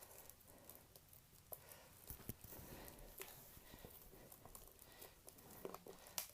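Near silence with a few faint, scattered clicks and taps of packaging being handled.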